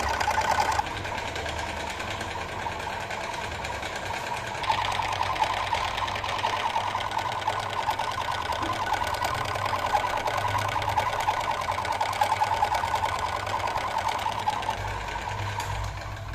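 Metal lathe running and cutting steel, with a steady fast chatter. The noise drops a little just under a second in and grows louder again about five seconds in.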